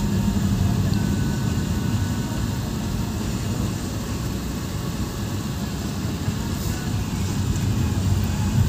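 Steady low rumble of a moving vehicle's engine and road noise heard from on board.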